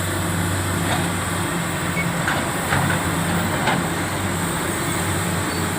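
Komatsu PC400 excavator's diesel engine running steadily in a low, even hum, with a few faint ticks.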